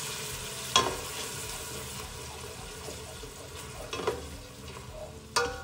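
Onions frying in bacon fat and butter in a pot, sizzling hard just after about a quarter cup of water goes into the hot pan, then easing off. A utensil stirring knocks sharply against the pot three times.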